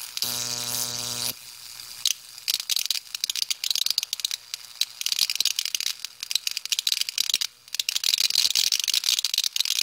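High-voltage electric arcs from a 15 kV transformer. A steady electric buzz for about the first second gives way to irregular crackling and snapping as the sparks jump across the rock to a copper ground plate, growing denser and louder near the end.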